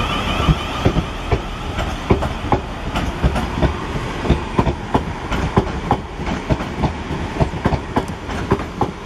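South Western Railway Class 444 Desiro electric multiple unit departing past the platform: a steady rumble of running gear, with its wheels clicking over rail joints several times a second.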